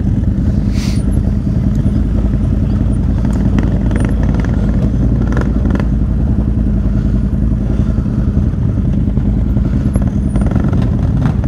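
Can-Am XMR 1000 ATV's V-twin engine running at a steady pitch while riding, with a few faint rattles in the middle.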